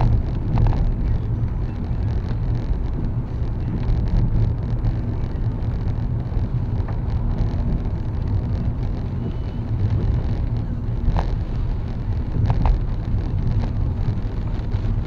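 A car driving on wet roads in heavy rain, heard from inside the cabin: a steady low rumble of road and tyre noise with a haze of rain on the car. A few short sharp clicks come near the end.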